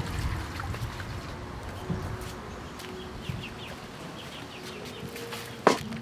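Chickens clucking in the background over a steady trickle of water poured from a steel pot into a metal bowl of rice. A single sharp knock just before the end.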